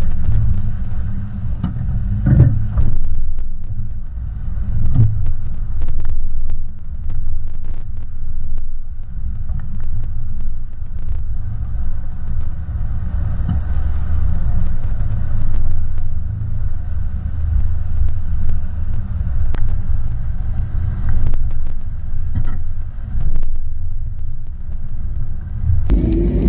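Off-road vehicle driving over rough ground: a steady low engine and road rumble with frequent short knocks and rattles.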